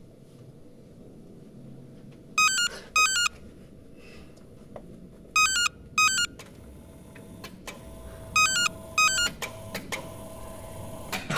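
Mobile phone ringing with a warbling double-ring tone: three pairs of short trilling rings, about three seconds apart.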